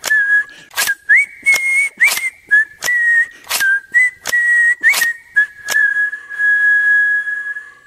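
Outro jingle: a whistled tune stepping between a few notes over sharp, regular percussive hits. The hits stop about six seconds in, and the whistle ends on one long held note that fades out.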